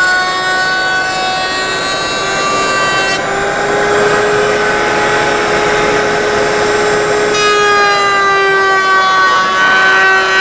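Table-mounted wood router running at speed with a steady high whine, rounding over the edges of wooden braces. Through the middle few seconds a rough cutting noise covers the whine as the wood is pushed past the bit, and the clean whine returns near the end.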